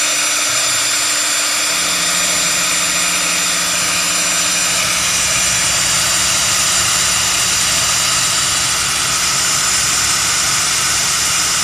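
CNC router running steadily: a high, even whine over a broad hiss, with a low hum joining about two seconds in.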